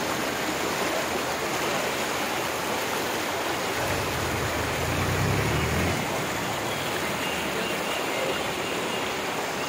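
Brahmaputra floodwater rushing over a road, a steady churning rush of fast-moving water. A low rumble swells briefly in the middle.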